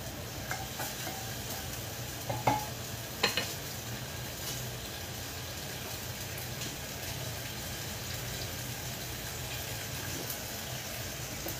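Cooking liquid sizzling in a frying pan and clay pot on a gas stove, a steady low hiss. A wooden spoon stirring the clay pot knocks against it twice, about two and a half and three and a quarter seconds in.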